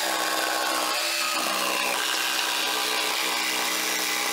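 AEG cordless jigsaw cutting a circle out of pressure-treated softwood decking boards, its motor running at a steady pitch as the blade saws through the wood.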